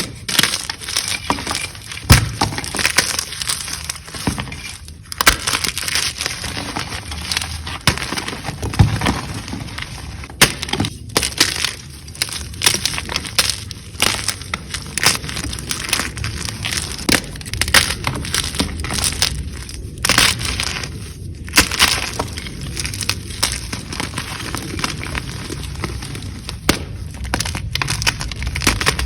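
Blocks of gym chalk crunching and cracking as they are crushed up close, a dense, irregular run of sharp snaps and crumbling.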